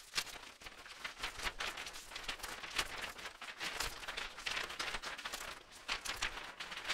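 Bursts of hissing, crackling noise, rapid and uneven, with no steady tone or beat: glitch-style sound effects under an animated logo intro.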